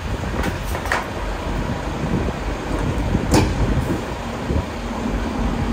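Steady low rumble of wind and idling trucks at a truck-stop fuel island, with a few sharp clicks, the loudest about three seconds in.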